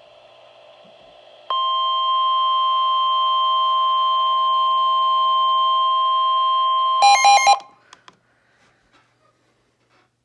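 Emergency alert attention tone: a loud, steady tone of a few fixed pitches starts about a second and a half in and holds for about five seconds. It ends in three rapid buzzy beeps, then silence.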